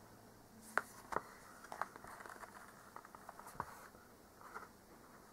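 Faint scattered clicks and light rustles of a hardback picture book being held open and handled, with two sharper clicks about a second in.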